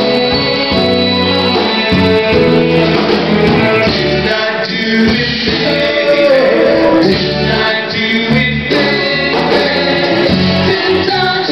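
Live soul music: a male vocal group singing together into microphones over a backing band with drums.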